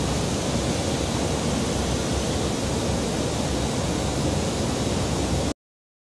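Steady rushing airflow noise of an aircraft in flight, with no distinct engine or propeller tone. It cuts off suddenly about five and a half seconds in.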